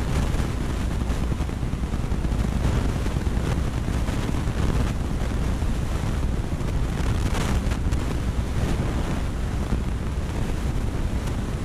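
Steady rush of aquarium water and bubbling over a constant low hum from the tank's filter or air pump.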